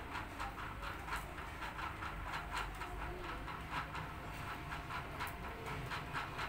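Repeated clacking of a kitchen utensil during food preparation, about three or four irregular strikes a second, over a low background hum.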